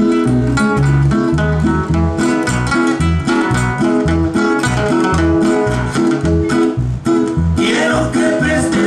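Two acoustic guitars, one of them nylon-string, playing a strummed instrumental intro with a steady alternating bass line. A man's singing voice comes in near the end.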